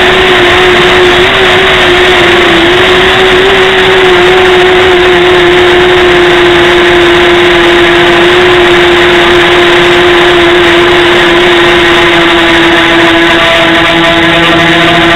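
Xuas MR 270 flying model's motors and propellers, heard close up through its onboard camera: a loud, steady whine that wavers slightly in pitch in the first few seconds, with a lower hum joining near the end.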